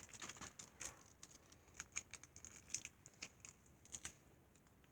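Faint crinkling and scattered small clicks of a blind-bag package being worked open by hand.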